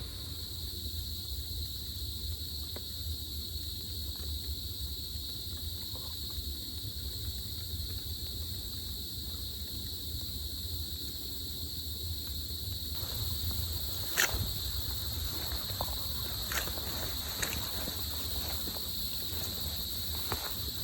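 Forest insect chorus: a steady, high-pitched buzzing held at a few constant pitches, over a low rumble. From about halfway through, scattered sharp clicks and rustles break in, the loudest a little past halfway.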